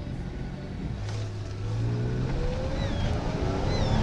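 Holden VY Calais's supercharged L67 3.8-litre V6 revving up hard as the car launches from a standstill, its pitch climbing steadily through the second half, with a few short high chirps near the end.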